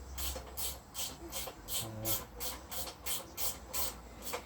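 Hand tool working on the motorcycle's metal parts in quick, even rasping strokes, about three a second, over a low steady hum.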